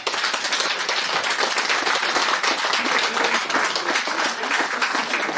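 A congregation applauding: many people clapping together, breaking out all at once and going on steadily.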